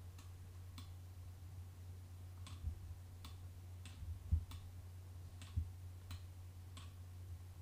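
Computer mouse and keyboard clicks: about eight sharp, separate clicks at irregular intervals, with a few low thumps on the desk, the loudest about halfway through, over a steady low hum.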